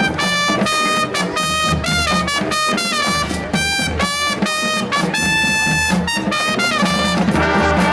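High school marching band playing, with a single brass line carrying the melody in held and bending notes over drums and low band accompaniment.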